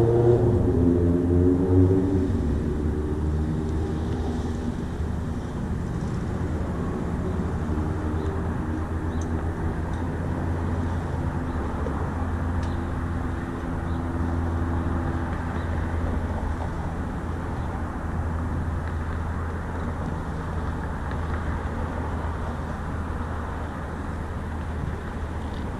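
City street traffic: a passing vehicle's engine note falls away in the first couple of seconds, then a steady low rumble of traffic continues.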